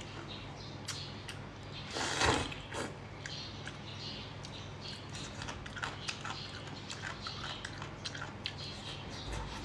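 Close-miked eating: chewing with many small wet mouth clicks, and one louder noisy rush about two seconds in.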